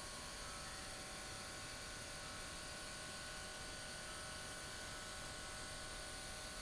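Small airbrush air compressor running, a steady hum with an even hiss of air.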